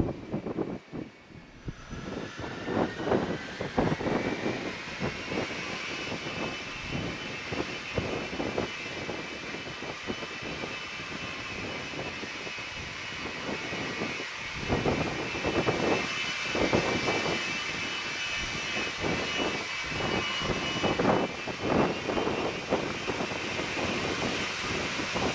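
The turbofan engines of a C-17A Globemaster III spooling up for takeoff: a whine rises in pitch over the first few seconds, then holds as a steady high whine over the jet noise. Gusts of wind buffet the microphone throughout.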